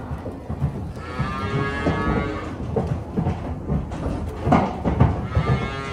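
Cattle mooing, one long call about a second in and another near the end, with knocks and thuds as the animals move about the pen.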